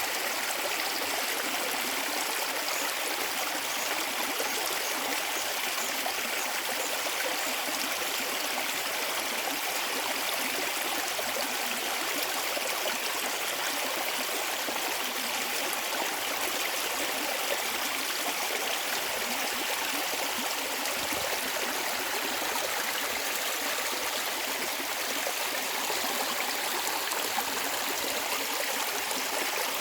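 Mountain valley stream running over rocks: a steady, even rush of flowing water.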